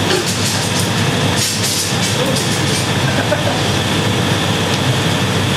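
Steady loud equipment noise of a glassblowing hot shop, with a low hum under an even rushing hiss. A few short high scrapes or clicks come in the first two seconds.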